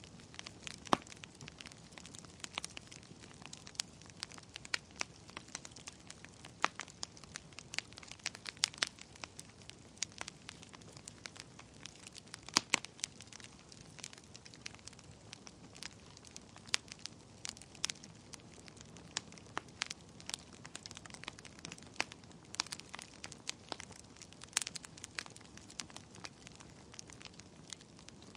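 Wood fire burning in a fireplace: irregular sharp crackles and pops over a soft steady hiss of flame.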